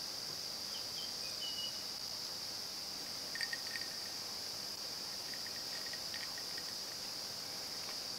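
A steady, high-pitched chorus of insects shrilling without a break, with a few short faint chirps over it.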